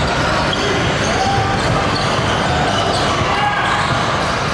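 Basketball game in a gym: a ball bouncing on the court amid the voices of players and spectators, with short high squeaks scattered throughout.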